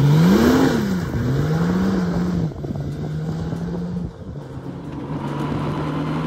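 Honda GL1800 Goldwing's six-cylinder engine accelerating: its pitch climbs, drops briefly about a second in as it changes up a gear, climbs again, then settles into steady running.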